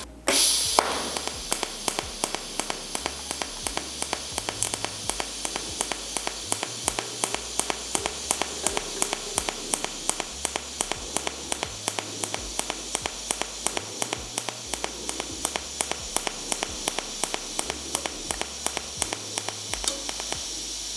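DC TIG welding arc burning on 3 mm stainless steel sheet at about 80 amps: it strikes just after the start, then runs as a steady hiss with a regular ticking about five times a second.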